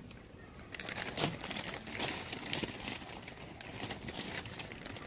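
Plastic wrapping on packs of rice noodles crinkling as they are handled. A rapid, uneven run of rustles and crackles starts about a second in.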